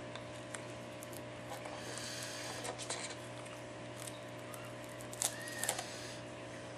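Small clicks, crackles and short scrapes of a tool prying the cracked glass digitizer loose from an iPad 4's frame, over a steady low hum. The clicks come in two clusters, about two seconds in and again about five seconds in.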